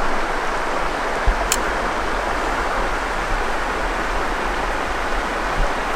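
River water rushing steadily. There is a low thump, then a short sharp click about a second and a half in.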